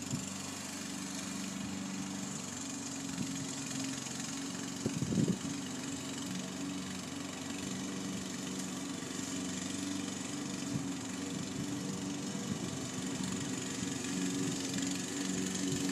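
Walk-behind gas lawn mower engine running steadily as it is pushed across the grass, with a brief louder knock about five seconds in.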